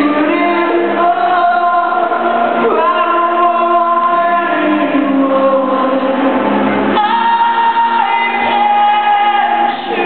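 Live rock band playing with a singer holding long sung notes, the pitch changing about seven seconds in. It is heard from far back in a large hall.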